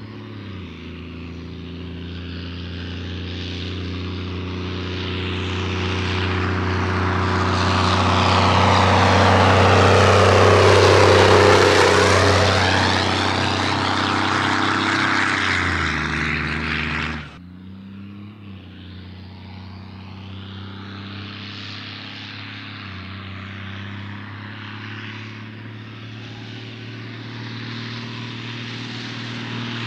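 Cummins 6CTA 8.3 straight-six turbo-diesel with a 4-inch straight-pipe exhaust, working under a heavy load, growing steadily louder as it draws near. A little past halfway its sound drops off suddenly, then it drones on quieter and starts to build again near the end.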